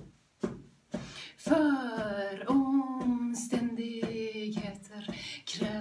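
A woman singing over accompaniment with a steady beat of about two strokes a second. About a second and a half in she comes in on a long note that slides down slightly and then holds steady.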